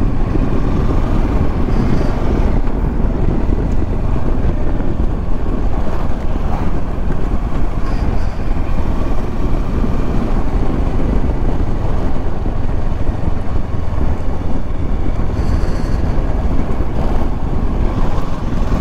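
Kawasaki Versys motorcycle cruising on the open road: steady wind noise on the microphone mixed with engine and tyre noise, loud and unbroken.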